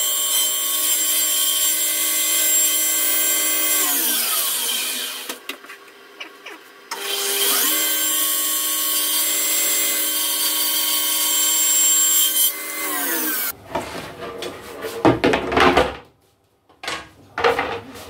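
Table saw running steadily with a whine of several fixed tones, switched off about four seconds in and winding down, then started again about seven seconds in for a cut and switched off around twelve seconds, winding down. Near the end, wooden pieces knock and clatter as they are handled on the saw table.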